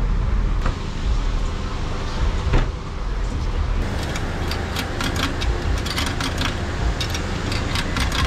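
A car's steady low rumble, with scattered light clicks and knocks over it.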